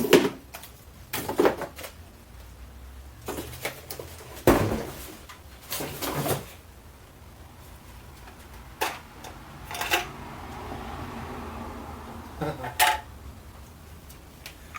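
Scattered knocks and clatter of objects being handled, a sharp knock every second or two at irregular gaps, the loudest about four and a half seconds in.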